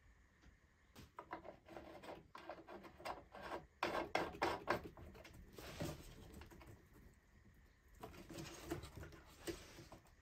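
Faint handling sounds: irregular scratching and rubbing with light taps as hands work a chainsaw's oil filler and plastic parts, pausing briefly around seven seconds in.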